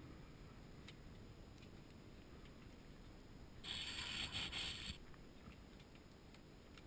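A plastic water bottle crinkling as it is handled, a hissy crackle lasting just over a second about four seconds in. Under it is the low, steady rumble of the Ford F-150's 4.2 V6 engine, heard from inside the cab.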